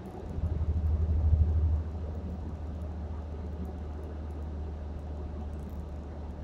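Low, steady road and engine rumble of a car heard from inside its cabin while driving, swelling louder for about a second and a half near the start before settling back to a steady level.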